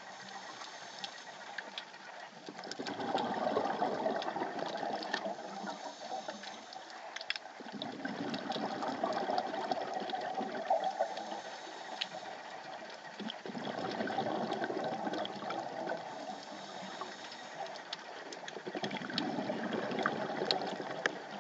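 Underwater sound of a scuba diver's breathing through a regulator: a rush of exhaled bubbles about every five seconds, with a quieter hiss between breaths and scattered sharp clicks.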